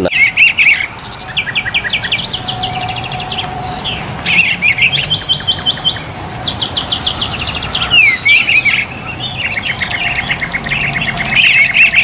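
Songbirds singing: fast runs of repeated chirps and trills, several songs overlapping with hardly a break.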